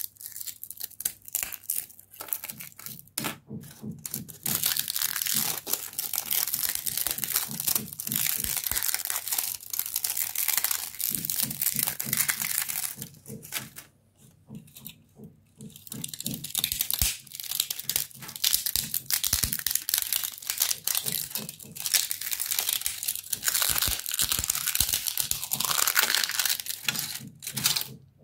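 3D-printed plastic support lattice being crushed and snapped apart by hand: dense crackling and crunching in long runs, easing off briefly about halfway through.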